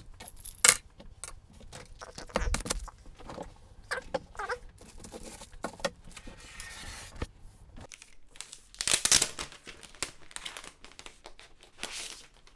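Rustling, crinkling and scattered clicks and knocks of things being handled close by, with a few louder swishes.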